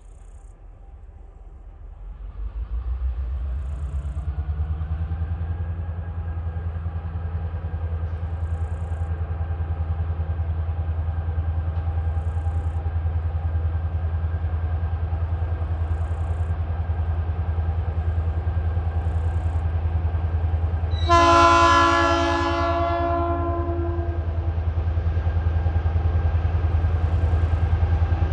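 Diesel-electric locomotive 2054 approaching in dynamic brake, a steady low drone that swells about two seconds in and grows louder as it nears. About three-quarters of the way through it sounds its horn once, a loud chord of about two seconds.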